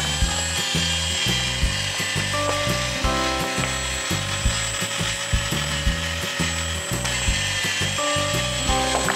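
Fisher-Price Drillin' Action toy drill running in reverse, backing a plastic bolt out of the toy workbench, its mechanism ratcheting; it stops right at the end. Background music plays underneath.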